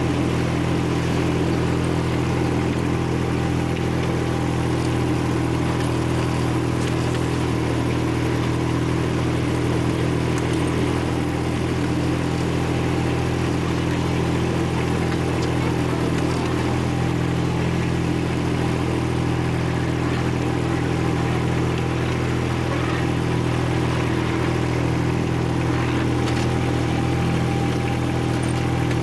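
Miniature ride-on railway locomotive's engine running at a steady speed as the train travels along its track, an even, unchanging drone.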